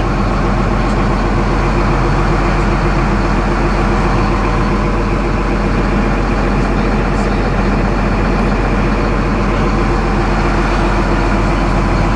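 Case CX330 excavator's Isuzu six-cylinder turbo diesel engine running steadily, heard from inside the cab.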